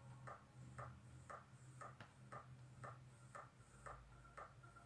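Faint, even ticking, about two ticks a second.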